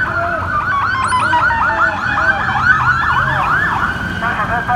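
Emergency vehicle sirens in a rapid yelp, their pitch sweeping up and down about three to four times a second, more than one sounding at once, over a low engine hum.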